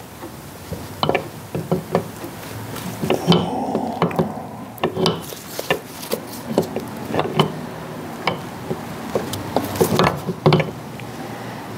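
Power steering pump being worked by hand onto a Cummins vacuum pump: irregular clicks, knocks and rubbing of metal and plastic parts as it is jiggled to line up the drive dogs and pushed through the seal.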